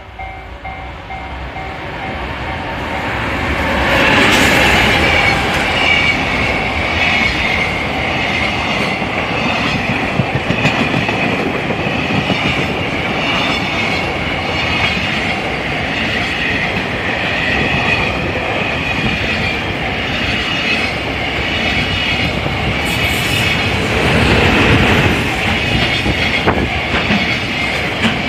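Two JR Freight trains hauled by EF210 electric locomotives pass each other at a level crossing, with wheels clattering over the rail joints. The crossing bell rings, and the noise swells twice as each locomotive goes by, about four seconds in and again near the end.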